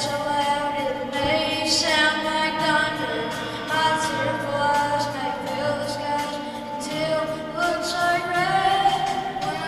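A school choir singing in harmony, holding long notes that shift in pitch every second or so.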